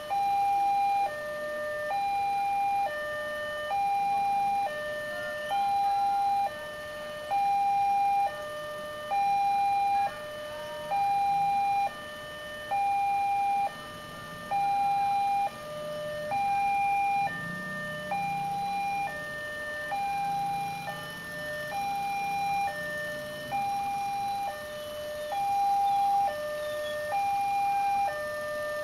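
Railway level-crossing warning alarm sounding a two-tone electronic signal: a higher note and a lower note alternate, each about a second long, repeating steadily while the barriers are down for an approaching train. A faint low rumble rises and falls in the middle.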